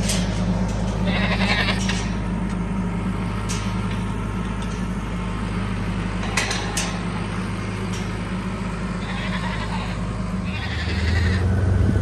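Goats or sheep bleating a few times over a tractor engine running steadily; the engine grows louder near the end.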